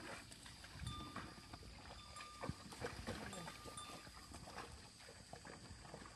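Water buffalo and ploughman trudging through wet paddy mud behind a hand plough: faint, irregular squelching steps and soft thuds of hooves, feet and ploughshare in the mud. A few short, even-pitched notes sound about a second in, around two seconds and around three and a half seconds, over a faint steady high whine.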